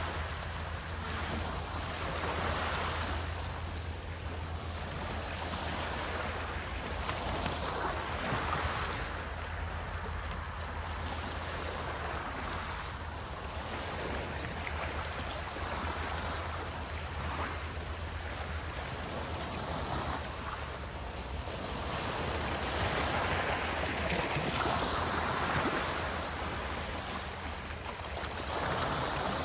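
Sea waves washing onto the shore, the noise swelling and fading every few seconds, over a steady low rumble of wind on the microphone.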